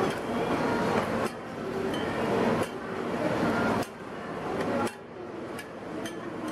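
Roti frying in oil on a flat round griddle pan, sizzling, with metal spatulas clicking and scraping against the pan. The sizzle drops and swells abruptly several times.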